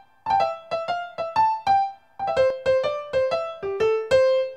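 Keyboard playing a bouncy single-note melody with a piano sound, in short detached notes. The melody comes in two phrases with a brief gap about two seconds in, and the second phrase ends on a longer held note.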